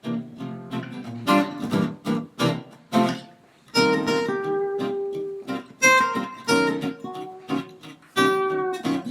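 Acoustic guitar music, strummed chords followed by picked notes that ring on.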